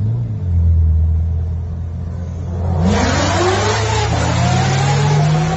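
Car engines running at highway speed, a low drone that climbs slowly in pitch as they accelerate. About three seconds in, a loud rushing hiss cuts in suddenly, with whines sliding up and down above it.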